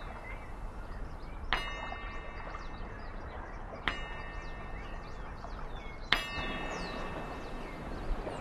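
Metal struck three times at a slow, even pace, about every two and a half seconds, each strike ringing on with several clear tones before fading. Small birds chirp faintly in the background.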